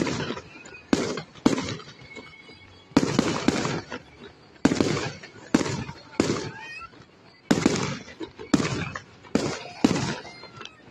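Aerial fireworks bursting overhead: about a dozen sharp bangs at uneven intervals, each fading away over about a second.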